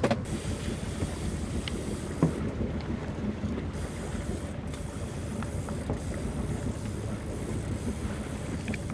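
Fishing boat's engine running steadily, with wind buffeting the microphone. There is a single knock about two seconds in and a few light clicks.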